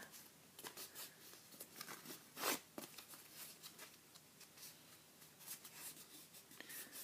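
Faint rustling and creasing of a square sheet of paper being folded by hand, with one louder crinkle about two and a half seconds in.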